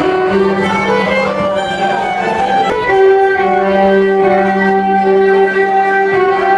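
Fiddle music: a string tune with long bowed notes held for a second or more, likely with a plucked-string accompaniment.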